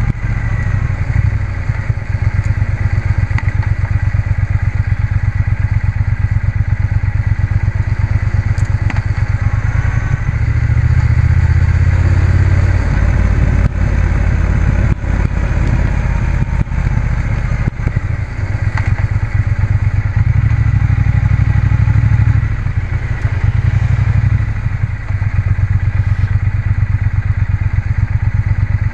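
Motorcycle engine running on the move, heard from the rider's seat as a steady low, rapid exhaust pulse. The engine note swells louder twice, about a third and about two-thirds of the way through, as the bike is opened up.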